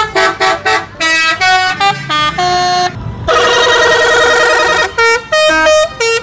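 Multi-tone musical bus horn of the Indonesian 'telolet' kind playing a quick melody of short notes. About three seconds in it holds a warbling chord for a second and a half, then goes back to short notes.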